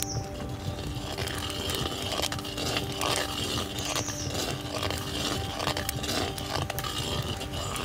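A long metal spatula scraping and stirring thick, simmering pomegranate paste around a black iron pot, with irregular scrapes and clicks against the pot.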